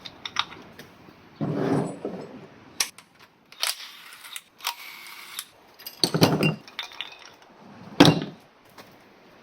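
Metal clinks, rattles and knocks of tools and timing-chain parts being handled as the timing chain tensioner and guides come off a GM 3.6 V6, with a scraping stretch around the middle and a hard clank near the end.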